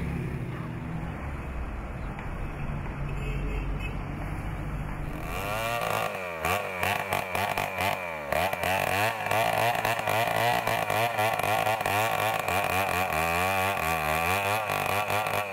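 A low, steady rumble for about five seconds, then a two-stroke chainsaw cutting into a tree trunk, its engine pitch rising and falling again and again as the throttle is worked.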